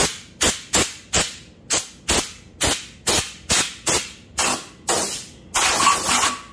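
Compressed-air blow gun fired in short blasts of hissing air, about two a second, with one longer blast near the end. It is blowing out the oil holes and cam follower bores of a VQ37VHR cylinder head to clear dirt or debris before assembly.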